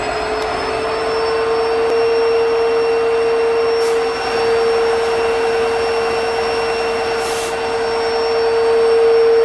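Steady whine of an EMD WDG-4 diesel-electric locomotive running, heard inside its cab. It rises slightly in pitch over the first couple of seconds, then holds steady, with two brief hisses about four and seven seconds in.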